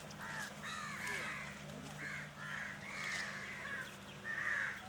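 Crows cawing repeatedly, short harsh calls coming several times a second and overlapping, as from more than one bird.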